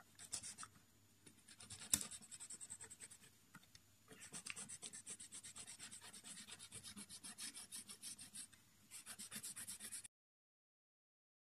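A walnut kernel rubbed back and forth over a dry, scratched wooden tabletop: fast scratchy strokes, about five a second, with short pauses and a sharp click about two seconds in. The sound cuts off suddenly near the end.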